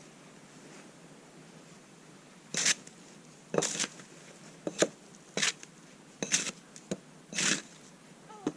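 Footsteps crunching through deep snow, roughly one step a second, starting a couple of seconds in.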